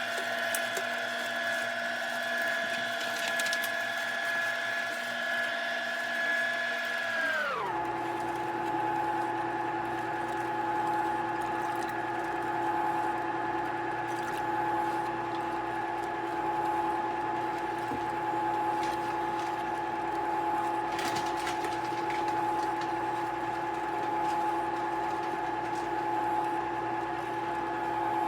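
Whynter ICM-200LS compressor ice cream maker running with a steady mechanical whine and hum. The pitch drops suddenly about a quarter of the way in, then holds steady at the lower pitch.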